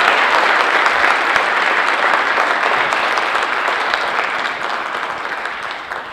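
An audience applauding, a dense patter of many hands clapping that fades away near the end.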